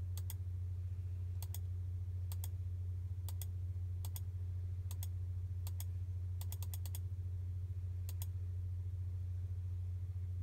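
Sharp double clicks about once a second over a steady low electrical hum, with a quick run of several clicks about six and a half seconds in.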